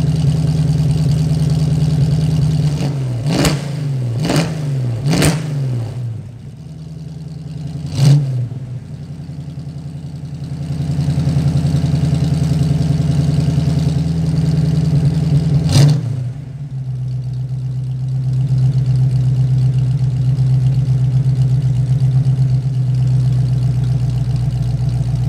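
1984 Ford Mustang GT350's 5.0L V8, fed by a Holley four-barrel carburetor and breathing through headers, an H-pipe and a Flowmaster Flow FX cat-back exhaust, idling. A few seconds in, the throttle is blipped three times in quick succession, then twice more spaced apart, and the engine settles back to a steady idle.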